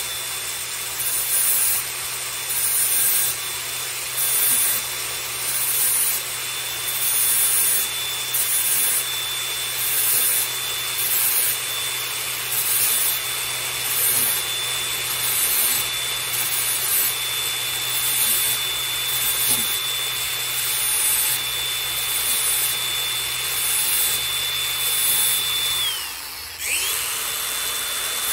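DeWalt angle grinder running with a steady high whine while its disc grinds the steel cutting teeth of a hedge trimmer blade to sharpen them, with a rasping grind swelling about once a second as it works from tooth to tooth. Near the end the motor's whine dips in pitch and comes back up.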